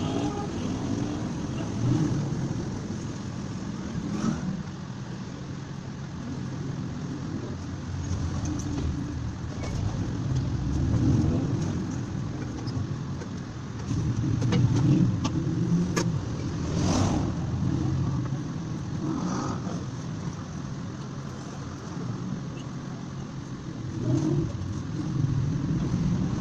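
Road traffic: vehicle engines running and passing, a low rumble that swells and fades, with a few sharp clicks.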